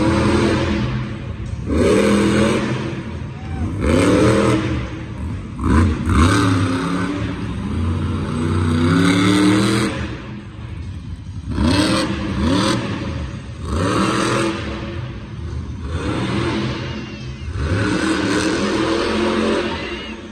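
Monster truck engine revving hard in repeated bursts, its pitch sweeping up and down every second or two, with a brief lull near the middle.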